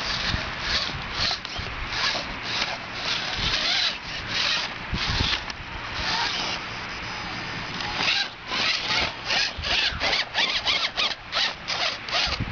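Radio-controlled rock crawler's small electric motor and gearbox whirring in short bursts as it is blipped up a rock face. The bursts come quicker and choppier from about eight seconds in.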